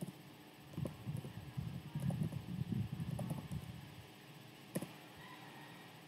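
Typing on a computer keyboard: a quick run of soft key taps lasting about three seconds, then a single sharper tap about a second later.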